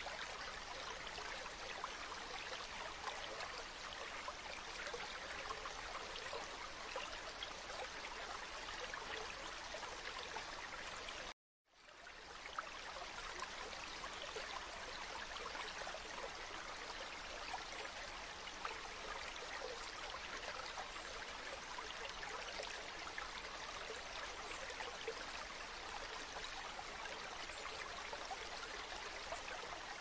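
River water flowing, a steady rushing babble with fine trickling detail. It cuts out completely for about half a second around eleven seconds in, then fades back up.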